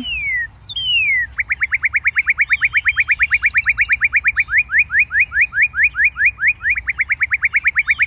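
A songbird singing: two clear down-slurred whistles, then a long rapid series of short rising notes, about six a second, with fainter chirps of other birds higher up.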